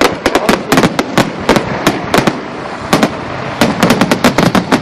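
Aerial fireworks going off in a rapid barrage: dense, overlapping sharp bangs and crackles, several a second, with a short lull about two and a half seconds in before the bangs pick up again.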